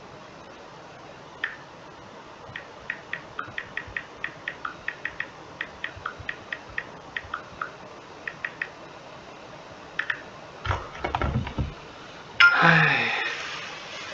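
Typing on a computer keyboard: a rapid run of short key clicks, about three or four a second, for several seconds. A few more clicks and knocks follow, then a louder burst near the end.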